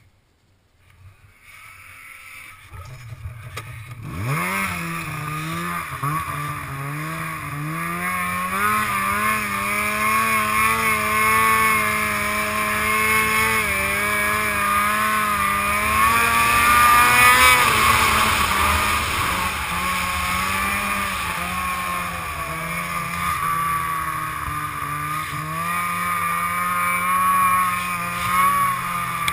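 Polaris snowmobile engine revving up sharply about four seconds in, then running hard under throttle while the sled is ridden through snow, its pitch rising and falling with the throttle.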